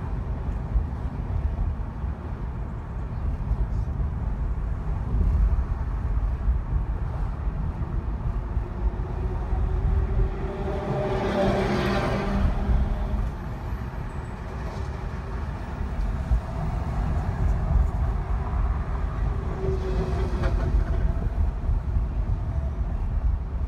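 Car driving along a city street: a steady low rumble of road and engine noise. About halfway through, a louder swell with a tone in it rises and fades, and a fainter one comes near the end.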